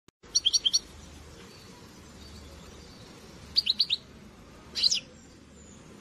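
A small songbird chirping in three short bursts over a steady low hiss. The first burst is a quick run of about five notes, the second is four quick notes about three and a half seconds in, and the third is a single call sweeping downward near the end.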